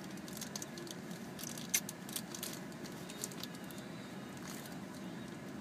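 Faint scattered clicks and rustles from a small object being handled, with one slightly louder click a little under two seconds in, over a steady low hum.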